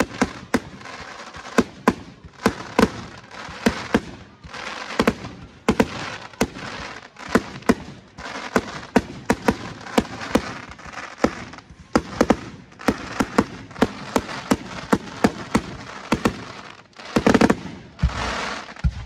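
Aerial firework shells bursting in quick, irregular succession: dozens of sharp bangs, at times several a second, with a noisy wash between them. A loud, dense cluster of bursts comes near the end.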